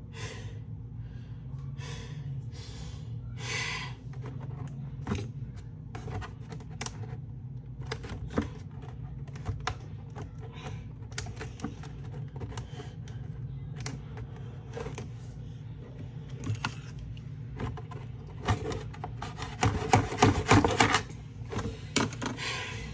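Irregular clicks, taps and rustles of a toy's plastic and cardboard packaging being handled while its twist ties are worked loose, with a louder, denser flurry of clicks near the end.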